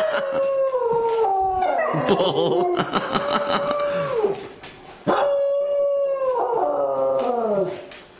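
New Guinea Singing Dogs howling: two long, musical howls, each holding a pitch and then sliding down at the end. The first lasts about four seconds, and the second starts about five seconds in with a second voice joining it.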